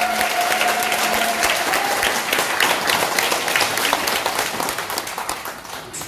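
Audience clapping to the end of a saxophone hymn, with the saxophone's last held, wavering note dying away in the first second and a half. The applause thins out and gets quieter near the end.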